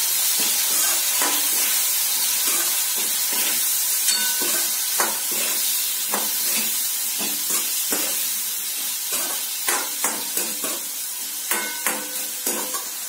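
Chopped potato and vegetables sizzling in hot mustard oil in a steel kadhai, with a steel spoon scraping and clinking against the pan as they are stirred. The sizzle is steady, and the clinks come irregularly throughout.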